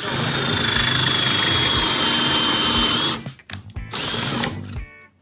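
Power drill spinning a pocket-hole bit down into a 2x4 held in a pocket hole jig: a steady high whine over the cutting noise for about three seconds, its pitch sagging slightly as the bit bites, then a second short burst about a second later.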